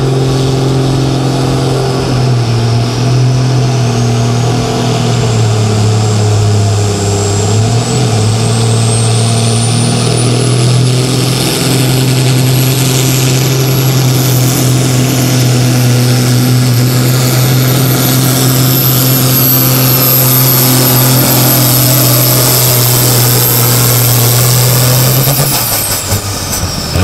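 John Deere Super Sport pulling tractor's turbocharged diesel held at high revs to build boost before the start: a steady heavy engine note under a high turbo whistle that climbs for about ten seconds and then holds. Near the end the engine drops off and the whistle falls away.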